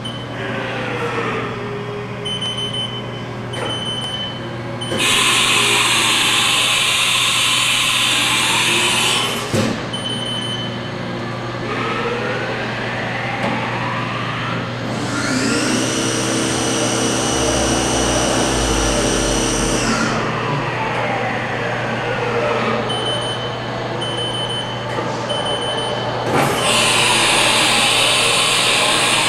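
Haas TM-1 CNC toolroom mill running its program: the CAT-40 spindle and axis drives wind up and down in pitch, the spindle holds a steady high whine for several seconds around 4,000 RPM, and two loud hissing stretches come about five seconds in and again near the end.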